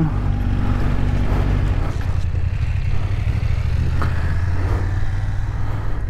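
Kawasaki motorcycle engine running steadily at low speed while the bike rolls slowly.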